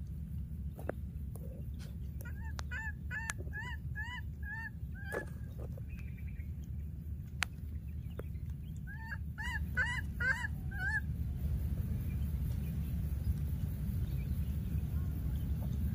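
A baby macaque calling: two quick runs of short, high cries that rise and fall, several a second, about two and a half seconds in and again about nine seconds in. These are the cries of a young monkey separated from its playmate. Under them runs a steady low rumble.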